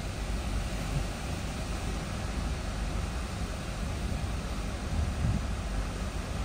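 Hurricane wind buffeting a car, heard from inside the cabin as a steady low rumble with a rushing hiss over it.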